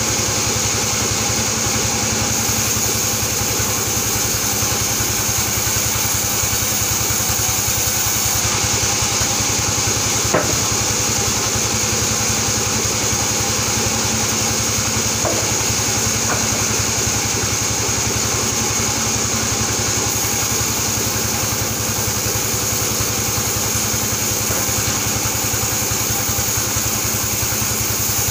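Band saw mill running steadily, a constant high whine over a fast low throb of its drive. A single sharp knock sounds about ten seconds in.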